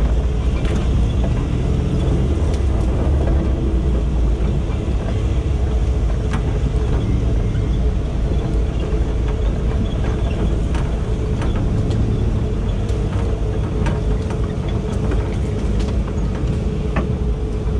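Off-road 4x4 driving slowly over a rough forest dirt track: a steady low engine and drivetrain rumble with a steady whine over it, and frequent sharp clicks and knocks throughout.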